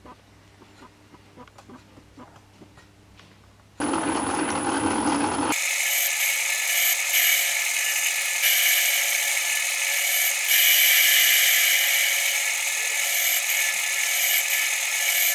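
Faint light ticking for the first few seconds, then a small Optimum metal lathe starts abruptly and runs with a steady whine from its motor and gearing.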